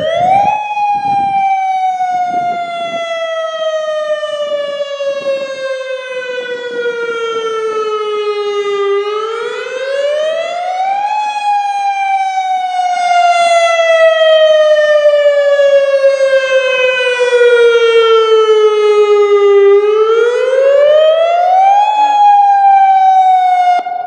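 Federal Signal Modulator 6024 electronic tsunami warning siren sounding a wail with a buzzy stack of overtones. The pitch climbs within a second or two, then slides slowly back down over about eight seconds, three times over, and the siren grows louder about halfway through.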